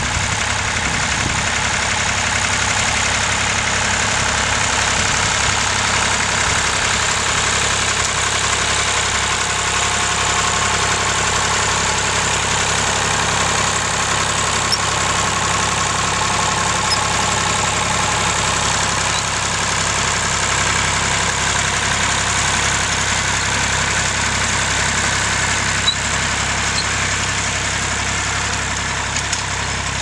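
Massey Ferguson tractor engine running steadily at low speed while pulling a seed drill across tilled ground.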